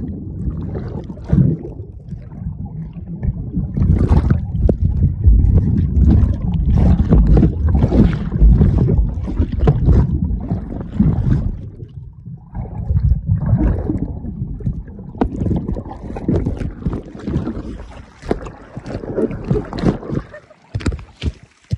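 Muffled underwater churning and bubbling of seawater around a submerged camera, with repeated knocks and splashes as a body moves in the water. It eases briefly about halfway through, then turns into more separate knocks and splashes.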